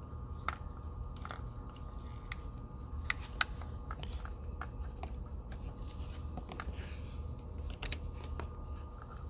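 Scattered small clicks and taps of a plastic ignition coil being handled and fitted over a spark plug in the engine, over a steady low hum.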